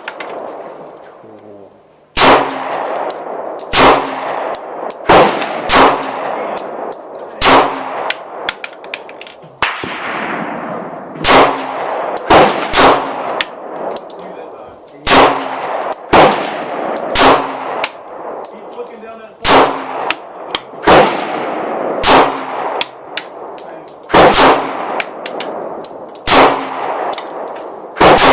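Glock 19 9mm pistol fired repeatedly at an unhurried pace, roughly one shot every one to two seconds. Each sharp crack is followed by a long, fading echo.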